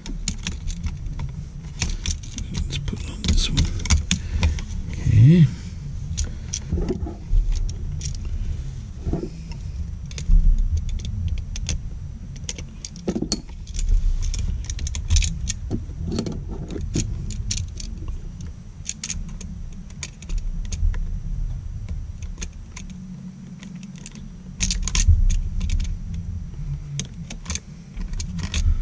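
Close-up handling of a duplex outlet, its copper wires and a hand tool: scattered small clicks and light metallic jingling, irregular throughout, over a low rumble of handling noise as the looped wire is fitted to the outlet's terminal screw.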